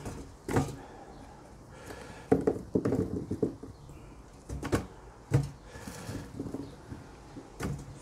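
Potatoes being handled: irregular knocks and thuds as they are picked out of a plastic crate and set down on kitchen scales.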